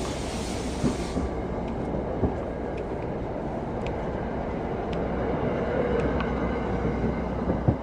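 Commuter train running on the tracks: a steady rumble with a few scattered knocks, and a burst of hiss in the first second.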